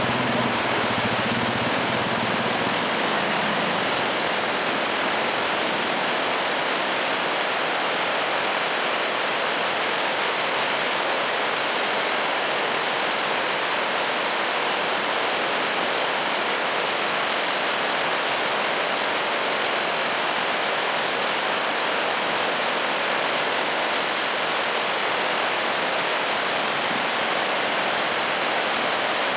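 Swollen floodwater rushing and churning through a washed-out breach in a dirt road embankment: a loud, steady rush of white water.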